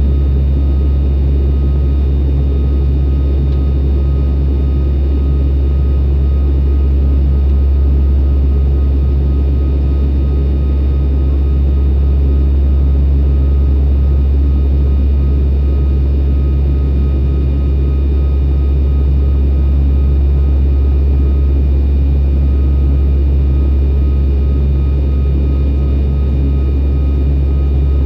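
ATR 42-300 turboprop heard from a window seat beside the propeller: a loud, deep, steady drone from the engine and propeller during the climb, with a faint higher whine over it.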